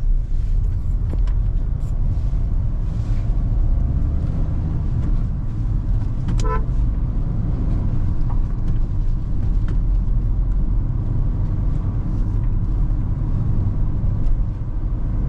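Steady low road and engine rumble inside the cabin of a moving Kia Seltos on test drive. A short car-horn toot sounds once about six and a half seconds in.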